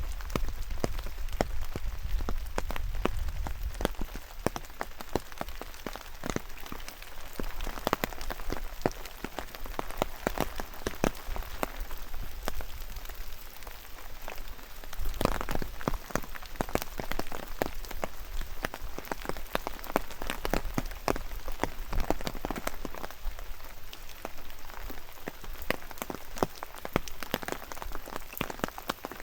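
Steady rain falling, with many separate drops tapping close by over a soft hiss. A low rumble of wind sits under it for the first few seconds.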